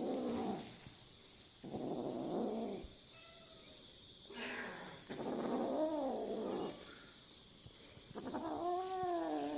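Domestic cat meowing repeatedly: a series of drawn-out meows, each bending up and down in pitch, coming every couple of seconds.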